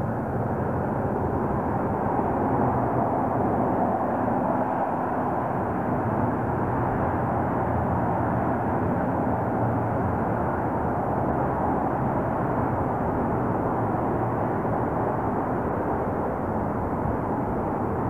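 Highway traffic buzzing along: a steady, continuous drone of many cars passing together.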